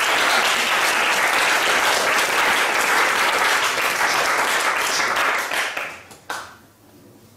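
Audience applauding, dying away about six seconds in, with one last clap just after.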